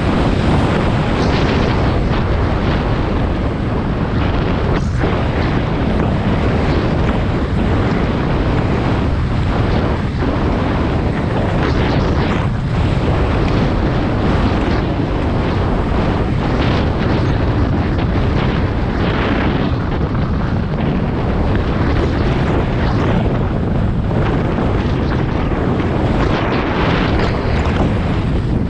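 Heavy wind buffeting on the on-board camera's microphone as a Santa Cruz Hightower LT downhill mountain bike runs fast over a dry dirt trail, with the rush of tyres on dirt and frequent knocks and rattles from the bike over bumps.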